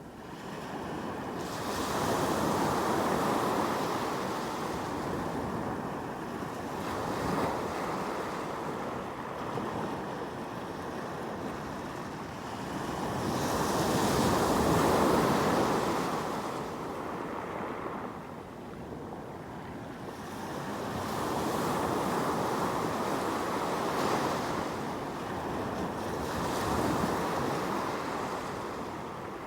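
Sea waves breaking and washing up the shore, each one swelling and then fading, several times over, with the loudest wave about halfway through.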